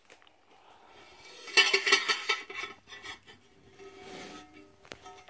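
Metal parts of a cross-stitch floor stand clinking and scraping together as it is handled, with a loud cluster of knocks about a second and a half in and lighter clicks and rubbing after.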